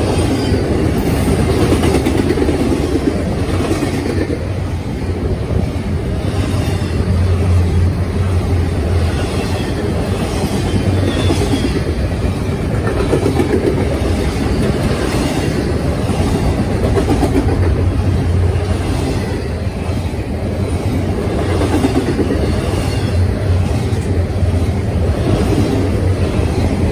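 Double-stack intermodal freight cars rolling past at close range: a loud, steady rumble of steel wheels on rail with repeated clatter from the wheels and joints.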